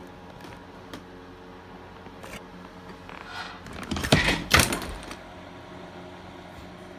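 A gaming chair's reclining backrest is released by its lever and springs upright, giving a loud mechanical clatter of knocks about four seconds in. A steady low hum runs underneath.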